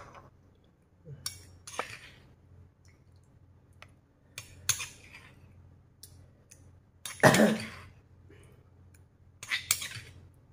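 Metal spoon clinking and scraping against a stone mortar and a glass bowl as sauce is spooned across: scattered sharp clinks and knocks with quiet gaps, the loudest about seven seconds in and a quick cluster near the end.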